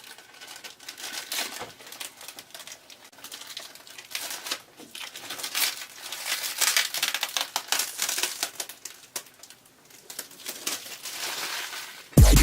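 Crinkling and rustling of plastic being handled, with many small irregular clicks.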